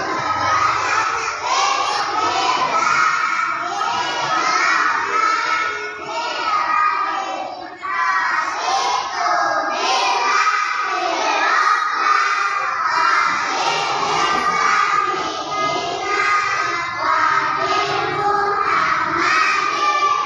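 A group of young children's voices raised together, loud and continuous, dipping briefly about eight seconds in.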